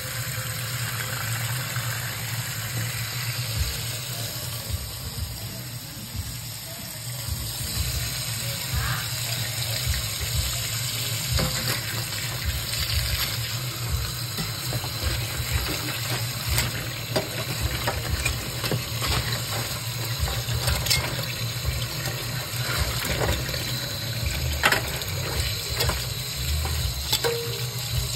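Water running steadily from a tap into a sink, with scattered small clicks and knocks throughout.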